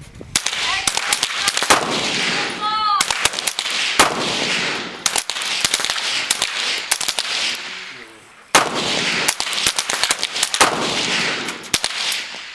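Rifle shots from several shooters along a firing line, coming thick and irregular and sometimes overlapping, each with an echoing tail. There is a short lull about eight seconds in, then the firing picks up again.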